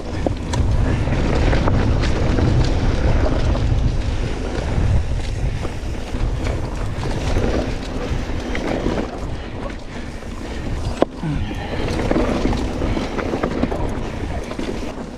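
Wind rushing over the microphone of a camera riding on a mountain bike descending a rough dirt trail. Under it are the rumble and rattle of the bike and its tyres on the dirt, with scattered sharp knocks and one louder knock about eleven seconds in.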